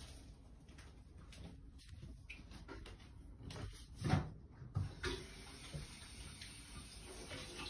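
Quiet room sound with a few soft, short knocks, the loudest just after four seconds in and another near five seconds.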